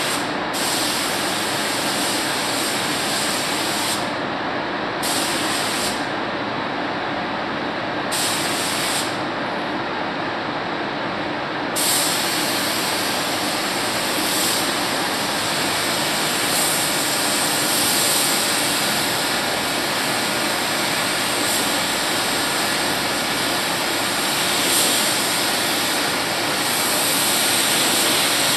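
Compressed-air paint spray gun hissing as paint is sprayed onto a car's body, over a steady rush of air. The hiss breaks off a few times in the first twelve seconds, then runs on steadily.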